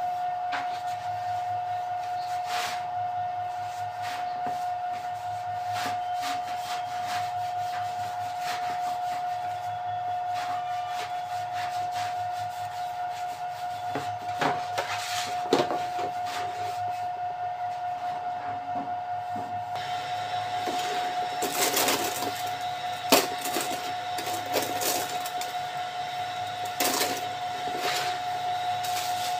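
Metal baking trays and bread halves being handled, giving scattered knocks and clicks, more of them in the second half, with one sharp knock a little over two-thirds of the way in. Under them runs a steady high whine with a low hum.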